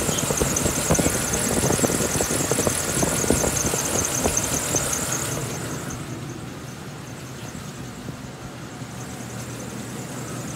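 Van engine idling, heard up close at the serpentine belt and A/C compressor pulley, with a steady high whine over the running. A little past halfway it drops away and sounds more distant as the high whine fades.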